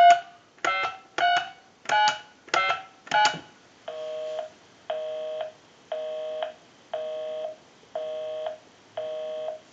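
Touch-tone dialing on a reproduction grand desk telephone: six quick keypad tones in a row, then a busy signal, a low two-note tone pulsing on and off about once a second, because the number being called is the line's own. Heard through the line's amplified pickup.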